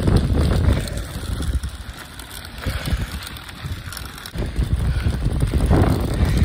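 Gusty wind buffeting the phone's microphone: a low rumble that eases about a second in and picks up again after about four seconds.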